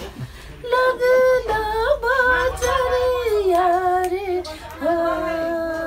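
Older women singing an old Tharu folk song unaccompanied, in long held notes that step between pitches, with a brief break just after the start.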